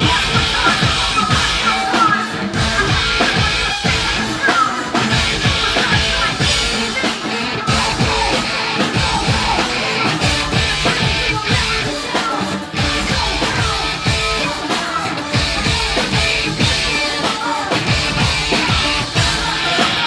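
Live rock band playing loudly: electric guitar and a steady driving drumbeat, with a woman's voice singing over them.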